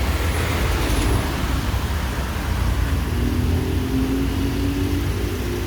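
Car on the move: a steady low road-and-engine rumble, with a faint held drone rising in over the second half.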